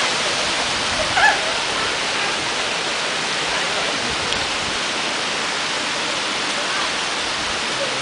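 Steady rushing of the Dzhur-Dzhur mountain waterfall and its stream pouring into the rock pool, with a short voice about a second in.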